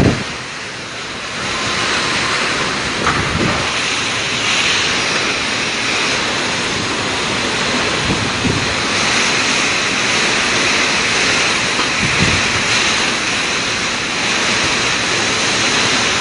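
Typhoon wind and heavy driving rain, a loud steady rush, with gusts buffeting the microphone a few times.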